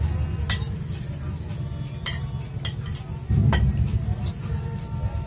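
An eating utensil clinking against a plate about five times during a meal, over a steady low rumble.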